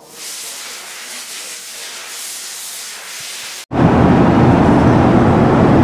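A steady hiss, then after an abrupt cut a louder steady rumble of a vehicle driving at highway speed, heard from inside the cabin.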